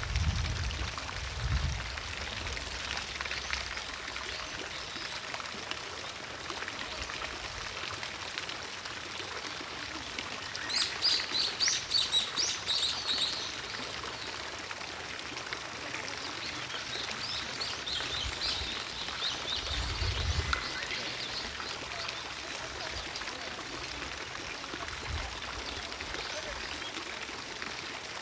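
A fountain's water runs steadily as a soft rushing. A small bird sings a quick run of high chirps near the middle, then chirps more softly a few seconds later.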